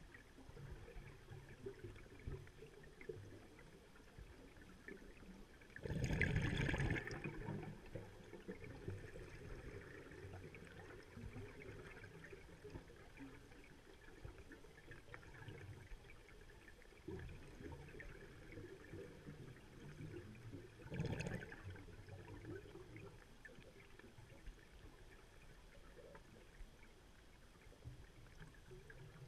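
Scuba diver's exhaled air bubbling out of the regulator, heard underwater: a rushing burst about a second long roughly six seconds in and a shorter one about two-thirds of the way through, with a faint low rumble and crackle of the water between them.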